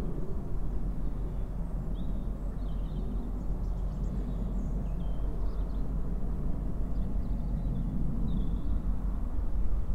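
A steady low rumble, with a few short, faint high chirps above it.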